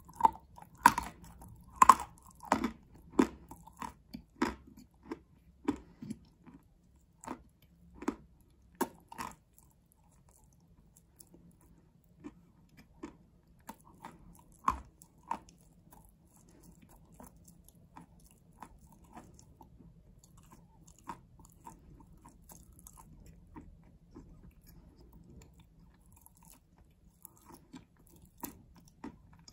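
A person biting and chewing a mouthful of edible white chalk. Sharp crunches come about every half second for the first ten seconds, then quieter chewing with an occasional crunch.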